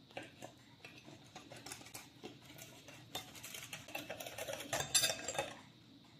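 Stainless wire whisk beating a thin batter mixture in a ceramic plate: quick clicking and scraping strokes of the wires against the plate, growing busier and loudest about five seconds in, then stopping.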